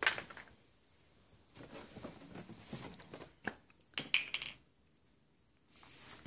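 Handling noise from art supplies: sharp clicks and knocks of small hard objects such as markers and caps on a tiled floor, with rustling in between. The loudest knock comes right at the start, and a quick cluster of clicks follows about four seconds in.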